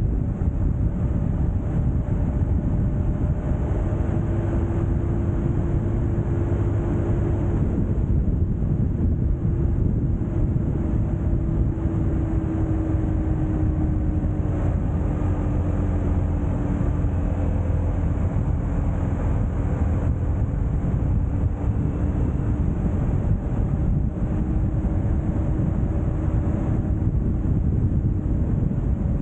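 Steady wind rush on the microphone and road noise of travel along a highway, with a faint hum that slides slowly lower in the middle.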